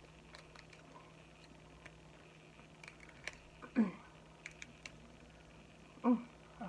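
Light, scattered clicks and crackles of a giant shrimp's shell being peeled apart by hand. A short voice sound about halfway through and another near the end.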